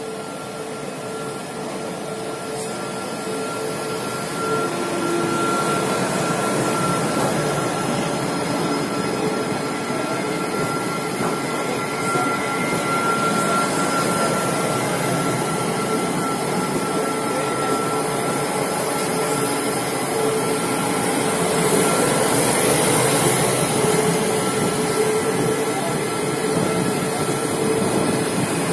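Lastochka (Siemens Desiro RUS) electric multiple unit pulling in alongside the platform: a dense steady rumble and hiss of the passing train with a held whine, growing louder over the first few seconds, then steady.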